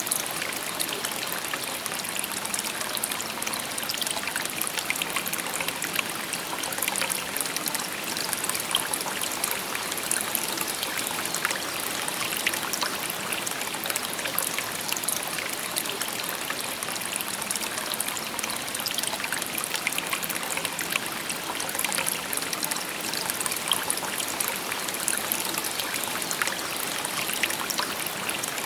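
A shallow stream babbling steadily over stones, a continuous bright rush of water with fine trickling and splashing detail.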